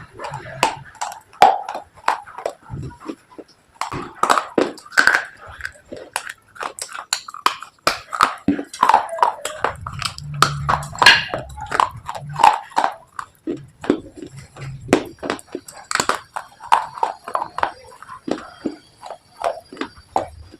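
Close-miked crunching of slate pencils and baked clay being bitten and chewed: a dense run of irregular sharp cracks and crackles.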